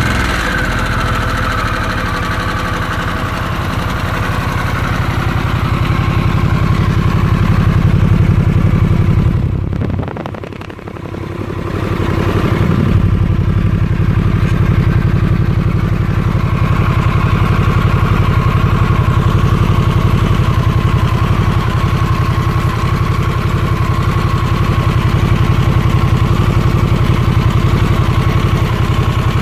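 Harley-Davidson Sportster S's liquid-cooled Revolution Max 1250T V-twin running at idle through the stock exhaust, just after being started. The sound briefly drops and swells back around ten seconds in, then settles into a steady idle.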